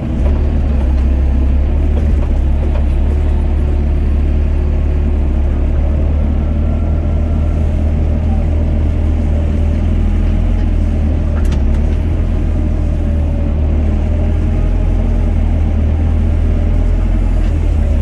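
Doosan DX55 mini excavator's diesel engine running under load, a loud steady low drone heard close from the cab as the machine digs the trench and swings to dump the spoil. A single click sounds about eleven seconds in.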